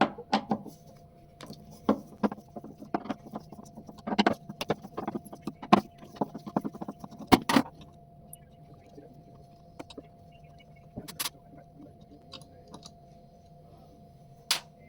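Irregular metal clicks and clinks of a screwdriver and hinge hardware being worked on a door hinge, dense for the first half and then sparse.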